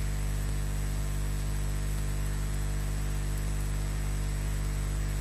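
Steady electrical mains hum with hiss over it, from a wildlife nest camera's microphone feed; no bird calls or knocks stand out.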